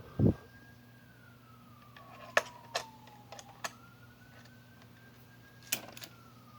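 A siren wailing faintly, its pitch rising and falling slowly, about once every four seconds. A low thump just after the start is the loudest sound, and several sharp clicks and knocks come through the middle and near the end.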